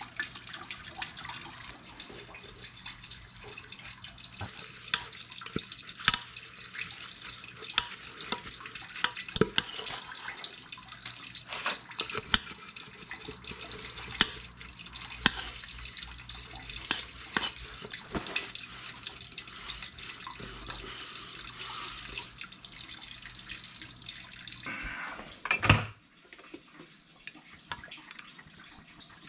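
Old fuel draining from a Farmall F-12 tractor in a steady trickling stream into a plastic bucket, with scattered sharp clinks of a tool scraping inside a metal can. A louder splash and clatter comes near the end, and then the trickling stops abruptly.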